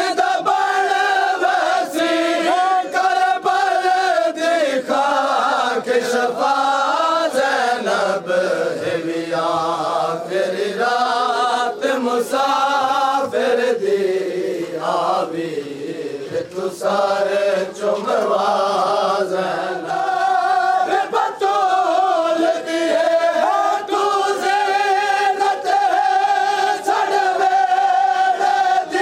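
A male reciter singing a Punjabi nauha lament into a microphone, a crowd of men chanting along with him, and sharp slaps of matam chest-beating throughout.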